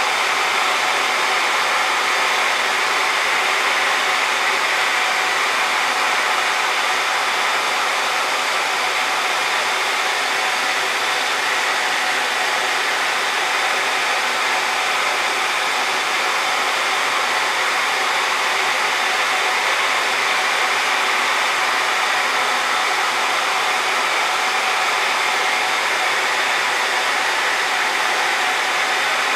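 Loud, steady rushing of air from a blower fan, which the uploader takes for the station's blower and calls quite loud noise.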